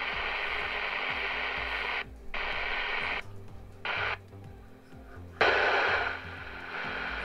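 Eurosonic ES200 handheld CB radio's speaker hissing with receiver static, cutting out briefly several times and coming back, loudest just over halfway through.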